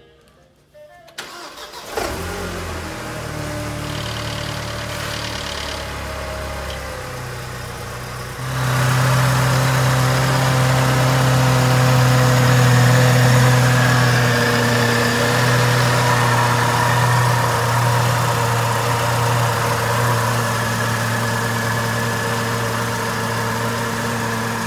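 A Mercedes-Benz C-Class four-cylinder engine is cranked and starts about a second in, then idles steadily. This is its first start after fresh oil. The idle grows louder about eight seconds in and then holds steady.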